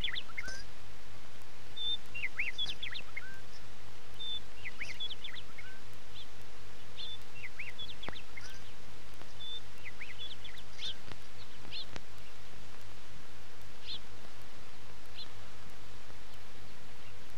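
Small birds chirping in short, repeated high calls. The calls are frequent for about the first ten seconds, then thin out and stop, over a steady low hum.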